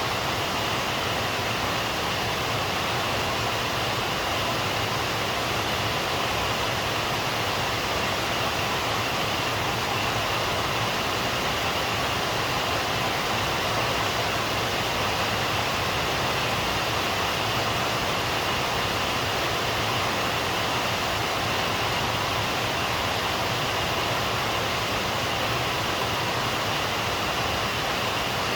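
Rain falling steadily, an even hiss that neither swells nor breaks.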